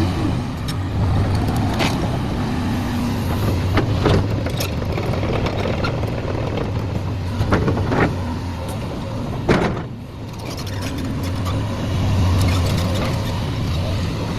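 Caterpillar 336 hydraulic excavator's diesel engine running steadily, with a handful of sharp knocks over it. The engine sound drops briefly about ten seconds in, then builds again.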